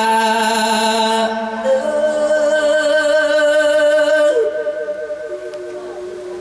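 A monk's voice drawing out long sung notes in the melodic Isan sermon style, each note held for a second or more; about four seconds in the note wavers through a short turn and settles lower and softer.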